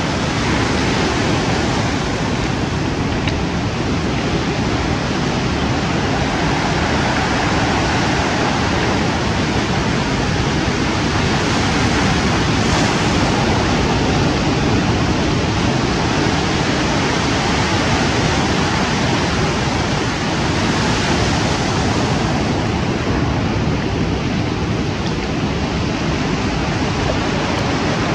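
Sea surf breaking and washing onto a pebble beach: a steady rush of waves that swells a little now and then.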